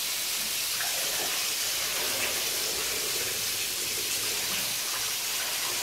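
Running water, a steady unbroken hiss.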